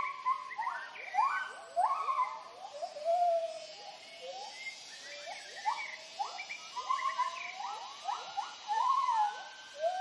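White-handed gibbons giving their territorial hooting calls: a chorus of repeated whoops that swoop up in pitch and then level off or fall, several voices overlapping.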